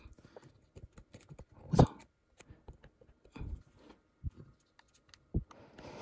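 Quiet, scattered small clicks and taps of a screwdriver and fingers working on the plastic casing of a DJI Pocket 2 gimbal camera being taken apart, with one louder knock about two seconds in.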